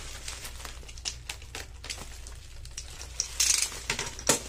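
Irregular sharp clicks from a snap-off utility knife working through bubble wrap, with a short crinkle of the plastic wrap about three and a half seconds in.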